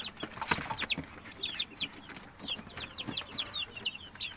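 Jersey Giant chicks peeping: a string of short, high peeps, each falling in pitch, several a second from more than one chick.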